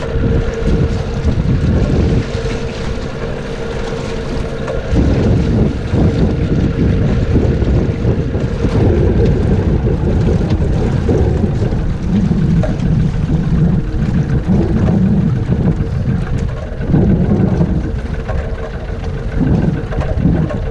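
Wind buffeting the microphone on a small boat at sea, an uneven low rumble, with a steady hum running underneath.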